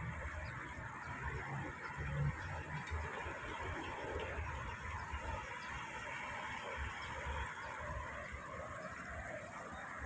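Steady background hiss with an uneven low rumble underneath; no call or distinct event stands out.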